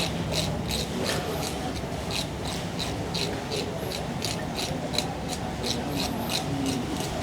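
Quick, regular grooming strokes on a cat's fur, about three a second, over a steady low background rumble.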